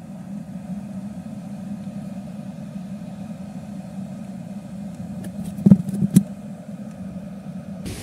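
A fishing boat's engine running steadily at an even hum, with two sharp knocks about half a second apart near the six-second mark.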